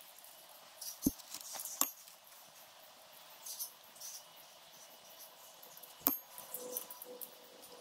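Hand tools clicking and clinking on a small engine's top cover as its bolts are undone: three sharp clicks, about a second in, just before two seconds and about six seconds in, with light scraping and handling noises between them.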